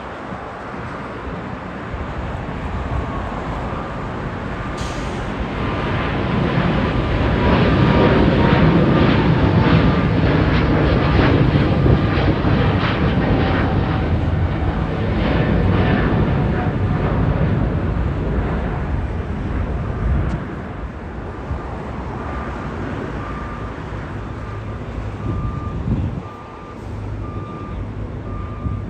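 Boeing 777-300ER's GE90 jet engines at takeoff power as the airliner climbs past. The noise builds to a loud rumble with crackle and a slowly falling whine, then eases away. After about 20 seconds a fainter, steady jet noise follows.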